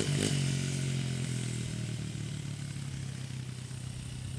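Dirt bike engine running at a steady pitch, fading gradually as the bike rides away.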